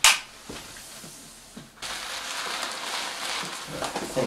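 Cat litter pouring out of a bag onto a hard set floor: a steady rush of granules that starts about two seconds in, after a sharp click at the very start.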